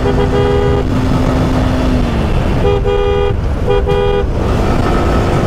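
A vehicle horn honks three times, each honk under a second, the last two close together, over the steady rumble of wind and engine on a moving motorcycle.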